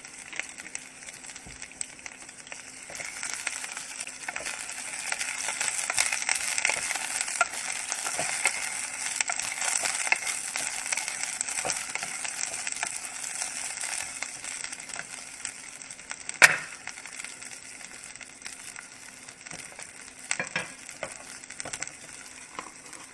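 Shredded cabbage and scallions sizzling in hot olive oil in a pot as they are stirred with a wooden spoon. The crackling sizzle builds over the first few seconds and eases later, with one sharp knock about two-thirds of the way through and a couple of smaller clicks after it.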